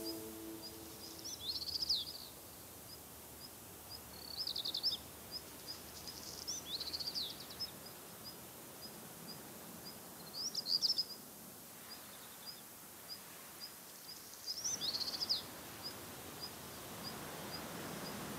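Small birds singing short, bright phrases every two or three seconds, over a steady run of high, evenly spaced ticks about two or three times a second and a soft background hiss.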